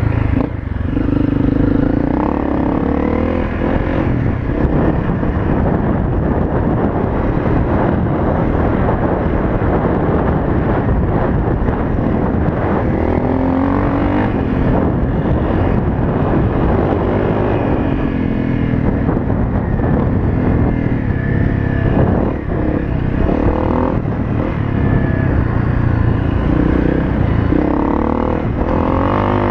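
Honda CRF250L's single-cylinder four-stroke engine running under way on dirt, its pitch rising and falling as the throttle is opened and rolled off, with a steady rush of wind over the helmet-mounted camera.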